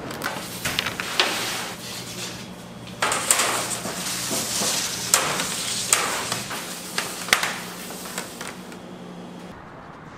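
Bakery production work: several sharp knocks and clatters of metal pans and utensils over a steady machine hum, with a rushing hiss through the middle that stops near the end.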